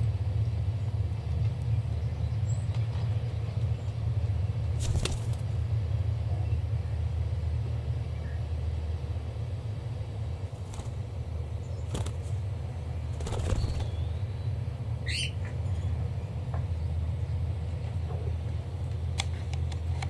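Pet budgies and cockatiels shuffling and briefly flapping their wings a few times, over a steady low hum. About 15 seconds in, one bird gives a single short rising chirp.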